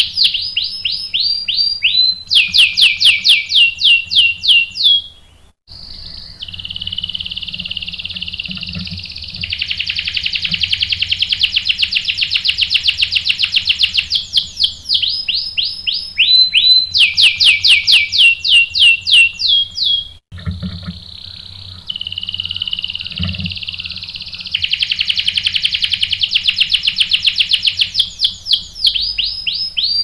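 Domestic canary singing a long rolling song. Runs of fast, falling whistled notes alternate with long, steady trills, and the song breaks off briefly about five seconds in and again about twenty seconds in.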